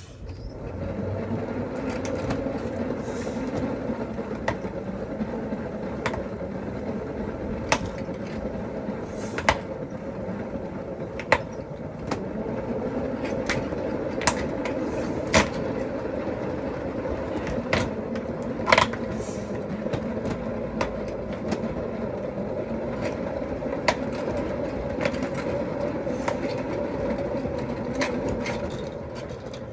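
Mini washing machine's spin dryer running at speed with a light load, a steady motor hum with occasional sharp knocks. It starts at the beginning and runs on without change.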